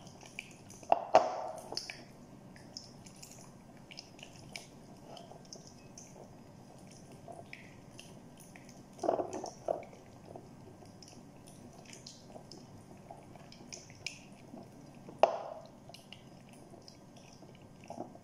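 Thick yogurt-and-spice marinade being stirred in a glass bowl: soft wet squelching, with three louder knocks of the utensil against the bowl spread through.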